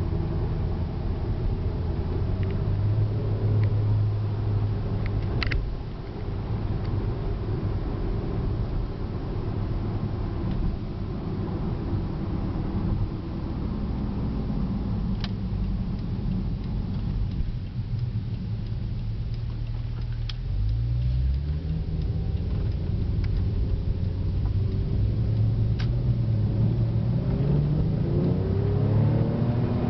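2008 Porsche 911 Turbo's twin-turbo flat-six and road noise heard from inside the cabin at highway speed with the convertible top up. The engine note climbs about twenty seconds in and again near the end as the car speeds up.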